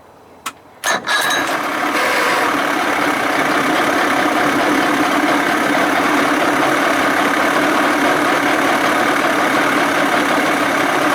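40 hp Johnson two-stroke outboard motor starting: two short sharp sounds, then it catches about a second in and settles into a steady idle.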